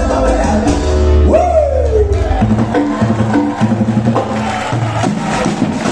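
Live Latin dance band playing, with keyboard, timbales and hand percussion. A loud falling glide stands out about a second and a half in, and then the bass and percussion carry on in an even rhythm.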